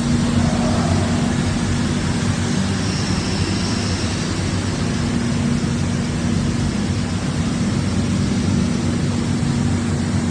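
Hurco VMX64i vertical machining center running: a steady machine hum with a steady low tone, from its running spindle, mist collectors and pumps.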